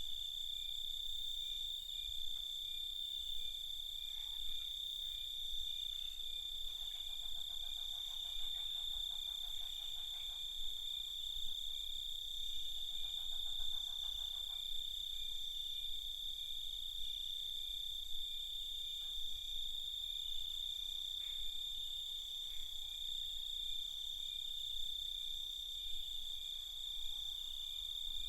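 Night chorus of crickets: a continuous high-pitched trill. A second, lower pulsing trill joins twice, from about 7 to 10 seconds in and again around 13 to 15 seconds.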